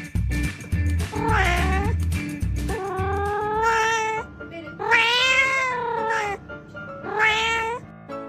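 A cat meowing four times: long, drawn-out meows that rise and fall in pitch, over background music with a beat that fades out in the first few seconds.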